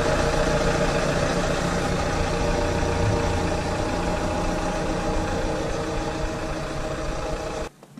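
Opel Insignia's engine running at idle while the car rolls slowly away in reverse, a steady engine note that grows slightly fainter. It cuts off abruptly near the end.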